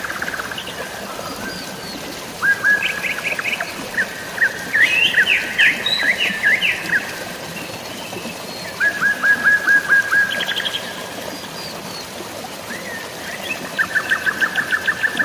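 Several birds chirping and calling over a steady hiss of drizzling rain and flowing water, with quick runs of repeated notes about nine seconds in and again near the end.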